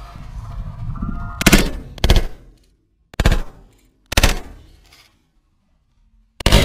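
Two hunters' shotguns firing at geese overhead: five sharp shots, two about half a second apart, then two more about a second apart, and a last one near the end, each trailing off briefly.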